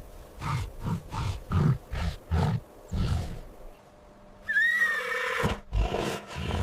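Animal calls: a run of short, low grunts, about two or three a second, then after a pause a louder, higher call whose pitch bends, followed by more low grunts.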